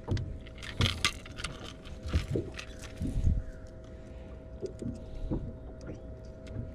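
Steady hum of a fishing boat's electric trolling motor, with scattered clicks and knocks from gear being handled on the boat.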